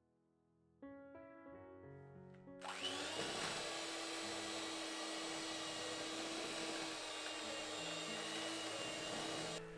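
Electric hand mixer starting about three seconds in and running steadily with a motor whine, its beaters whisking a wet scone mix of flour, egg, butter and milk in a glass bowl, then cutting off near the end.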